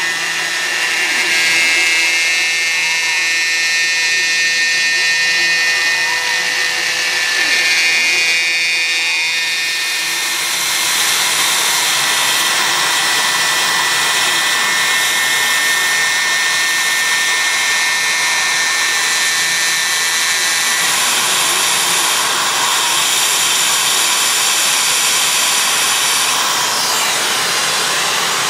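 CNC milling machine cutting a plastic part: the spindle runs with a steady whine while short rising-and-falling whirs from the axis drives repeat about every second and a half. About ten seconds in, the cutting becomes denser and hissier and stays that way.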